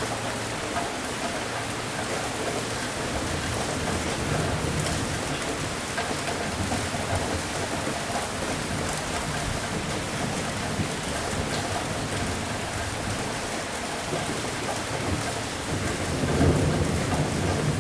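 Steady rain falling, with low rolls of thunder rumbling under it; one rumble swells louder near the end.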